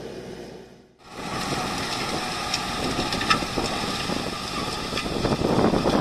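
Valtra BM100 tractor's diesel engine running under load as it pulls a 40-disc offset harrow through dry stubble, with the discs scraping and crackling through the soil and scattered sharp clicks. The sound fades almost out about a second in, then returns louder and grows as the tractor comes closer.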